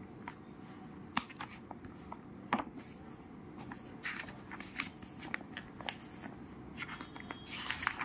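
Pages of a project file being turned by hand: the crinkle of a thin plastic cover sheet and the rustle of paper pages, with small clicks and taps. The rustling is busiest about halfway through and again near the end.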